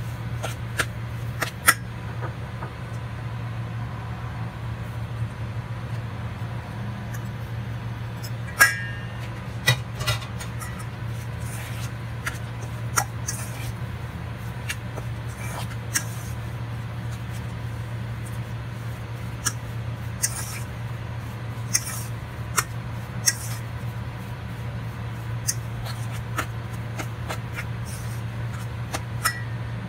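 A metal fork scraping and clinking against a stainless steel bowl as mashed potato and shredded chicken are mixed, with irregular sharp clicks over a steady low hum. One louder clink about nine seconds in rings briefly.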